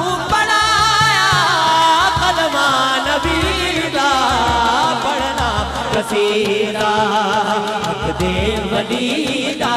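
A male voice sings a Punjabi devotional qasida through a microphone in long, wavering, ornamented lines, over a low repeated beat.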